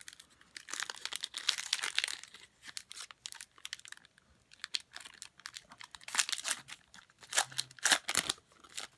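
Foil wrapper of a trading-card pack crinkling and tearing as it is pulled open by hand, in several bursts with short pauses between.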